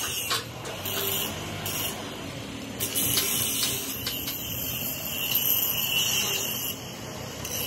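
Electric angle grinder with a flap disc sanding the edges and weld seams of a steel tractor blade, a steady high-pitched grinding hiss that rises and falls as the disc is pressed on and eased off the metal.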